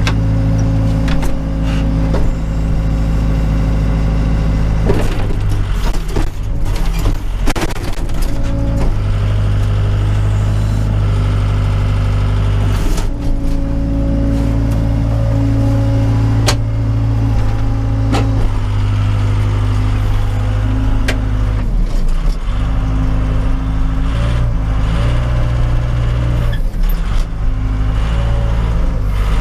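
Case 580 Super K backhoe's diesel engine running, heard from the cab. Its note shifts up and down as the hydraulics take load while the backhoe works, with a few sharp clanks.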